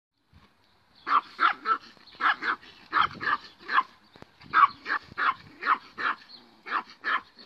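Small dog barking at a horse across a fence: a rapid run of short, high-pitched yapping barks, two or three a second, starting about a second in.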